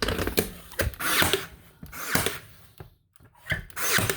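Ryobi AirStrike cordless 18-gauge narrow crown stapler driving staples into thin wood underlayment: several sharp shots and short whirring bursts, with knocks of the tool against the board in between.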